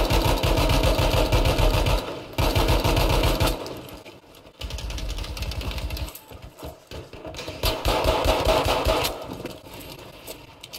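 Airsoft electric gun firing full-auto in four long bursts, a rapid mechanical rattle of motor and gearbox with short pauses between bursts.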